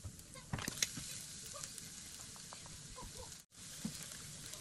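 Minced garlic sizzling in hot oil in a nonstick frying pan, with a few clicks and scrapes from a spatula stirring it, the loudest about half a second to a second in. The sound cuts out for an instant just past three seconds.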